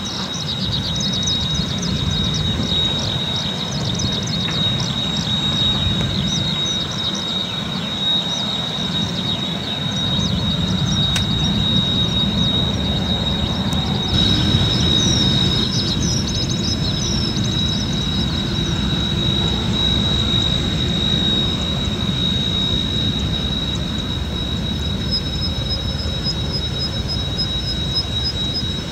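Kawasaki T-4 jet trainer's turbofan engines running at taxi power as it rolls past: a steady high whine over a low rumble.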